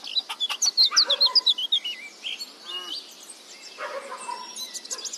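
Songbirds chirping, with a quick falling run of notes in the first two seconds, and a hen clucking briefly near the middle. Under it runs a faint steady hiss of a brook.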